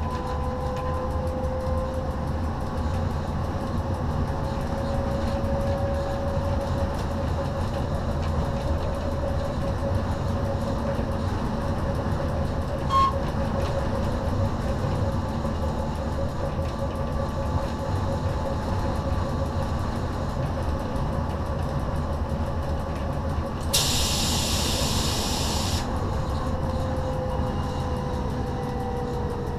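Z 6400 electric multiple unit running along the line, heard from inside the driving cab: a steady rumble of wheels on rail under a motor whine that rises slightly and then falls away near the end. There is one sharp click around halfway, and a two-second hiss a few seconds before the end.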